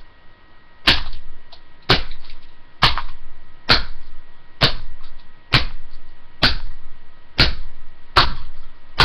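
Hammer striking the plastic casing of a Dell computer mouse: about nine hard blows, roughly one a second, each dying away quickly. The casing is cracking open under the blows.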